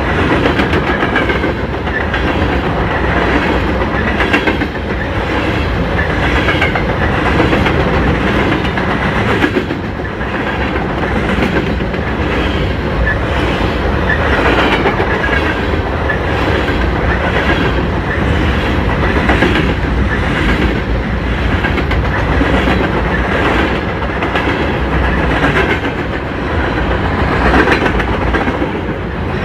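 Freight train of covered grain hopper cars rolling past close by: steady rumble of the wheels with a regular clickety-clack as the car trucks cross rail joints.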